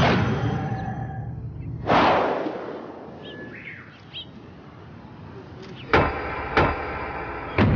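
Dramatic sound-effect hits: a sudden whooshing swell about two seconds in that dies away slowly, then three sharp ringing impacts near the end. Birds chirp faintly in between.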